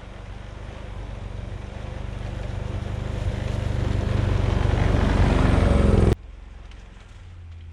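An engine running, growing steadily louder for about six seconds, then cut off abruptly, leaving a quieter steady low hum.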